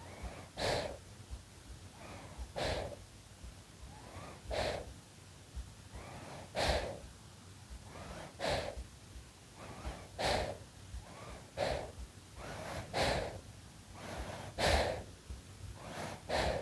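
A six-month-old baby breathing in sleep, close-miked: short airy breaths, a stronger one about every two seconds with softer ones between.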